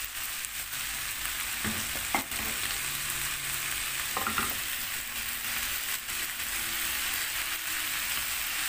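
Sliced potatoes, onion, bell peppers and tomatoes sizzling steadily in a frying pan, with a few short knocks of a silicone spatula stirring them, about two and four seconds in.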